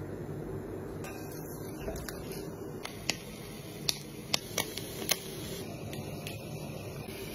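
Skewered meat grilling on an electric tabletop grill with an overhead heating element: fat spitting and popping in a few sharp single cracks, about five of them in two seconds, over a steady low hum.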